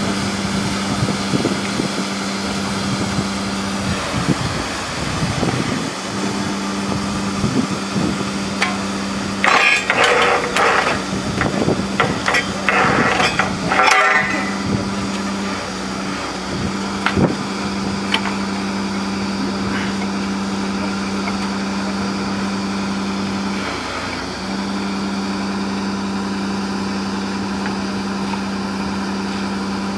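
Truck-mounted borewell drilling rig running with a steady machine hum that drops out briefly a few times. About ten seconds in, a louder stretch of higher-pitched sound lies over it for about four seconds, and a single sharp knock follows a few seconds later.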